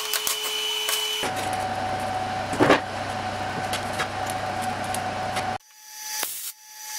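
Steady machine hum of workshop equipment, with one sharp metal clank a little before halfway as steel parts and magnetic welding squares are set on the steel plate. The hum cuts off abruptly about two-thirds of the way through and comes back in short swells.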